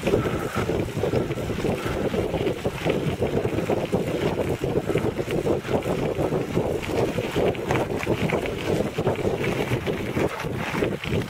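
Recumbent quad cycle rolling over a loose gravel road: tyres crackling over stones with the frame rattling, and wind on the microphone.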